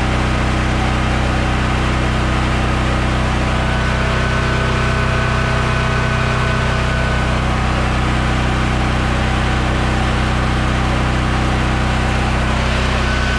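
BlackMax BM10700JR portable generator with a 13 hp Honda engine, running steadily with no load on its output.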